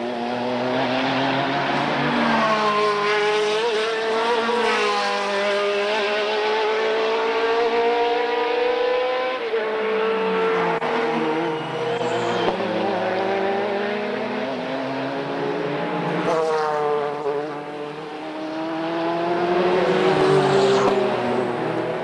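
Group C prototype race cars, among them a Courage and a Nissan, accelerating out of a corner one after another. Each engine note climbs and then drops back at the upshifts.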